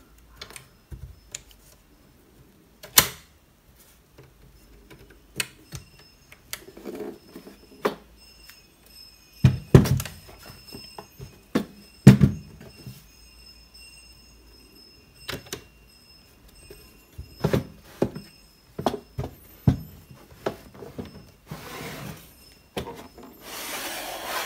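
Wooden parts of a Renoir beechwood table easel being handled: scattered knocks and clacks as its frame and mast are folded and adjusted, the loudest about ten and twelve seconds in. Near the end comes a longer scraping rush as its metal-lined drawer slides out.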